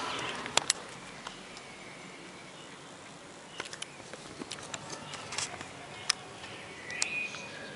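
Aircraft overflight noise fading away in the first second, leaving a quiet outdoor background with scattered sharp clicks and a few faint bird chirps.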